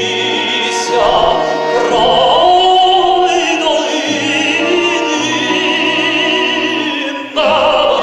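A male tenor sings a Ukrainian song in long held notes with wide vibrato. He is accompanied by instruments that sustain low tones beneath the voice.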